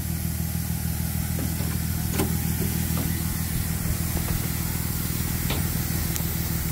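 Rollback tow truck's engine idling steadily, with a few light clicks over it.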